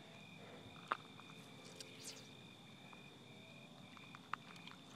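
Faint crickets chirping in a steady high-pitched chorus, with a couple of small clicks, about a second in and near the end.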